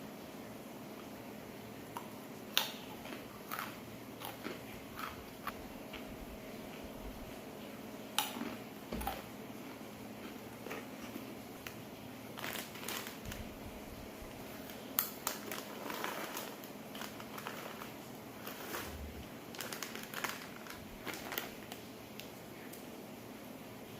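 Kitchen food-preparation sounds: scattered light clicks, knocks and crinkles over a steady low hum.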